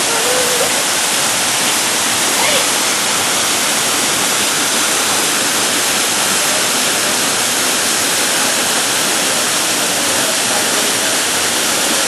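A waterfall pouring down in a steady, unbroken rush of falling water.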